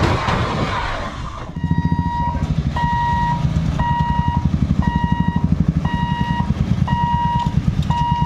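Passenger train coaches rushing past, cutting off about a second and a half in. Then a level crossing's electronic warning beeper sounds about once a second, each beep about half a second long, over the low running of motorcycle engines waiting and crossing.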